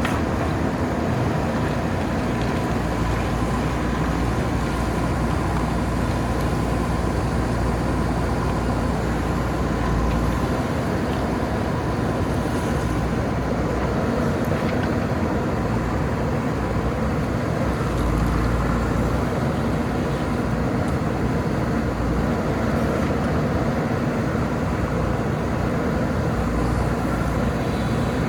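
JCB backhoe loader's diesel engine running steadily, its low note swelling a few times as it works.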